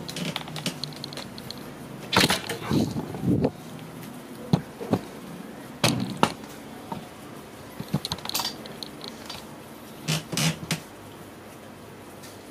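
Scattered clicks and knocks, some in quick pairs, as a magnetic cabinet latch is handled and pressed against a wardrobe door.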